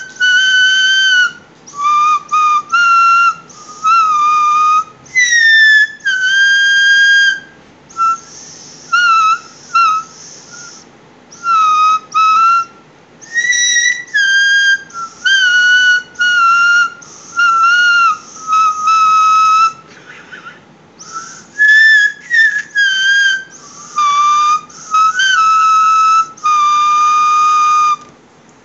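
Shepherd's whistle blown by a beginner in a long series of short and longer high blasts with gaps between them. The pitch steps up and down from note to note, and some blasts slide up or down.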